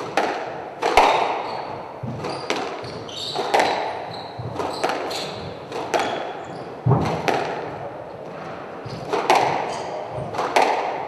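Squash rally: sharp cracks of the ball off rackets and the court walls, about one a second and echoing in the hall, with short squeaks of shoes on the wooden floor.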